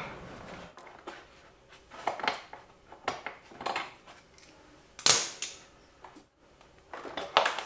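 Scattered metallic clinks and clicks from hand tools, an Allen socket on a swivel extension, being worked on the motorcycle's fairing screws, in short separate taps with gaps between.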